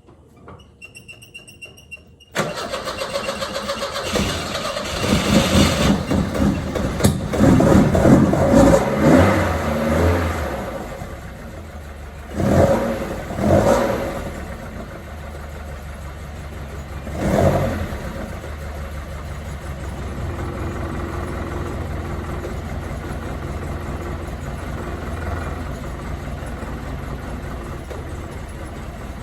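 1979 Alfa Romeo Spider's twin-cam four-cylinder engine starting a couple of seconds in, revved up and down several times, blipped three times, then settling to a steady idle.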